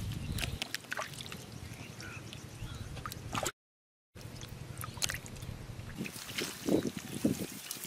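Hands squelching and churning through wet mud and shallow water, with irregular splashes, drips and wet clicks, heavier in the second half.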